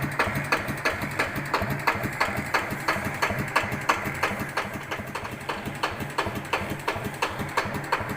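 Yanmar TF105 L single-cylinder diesel engine idling very slowly, with an even knock at about four beats a second. It carries the strange 'tok-tok-tok' knock that the owner is unsure is normal.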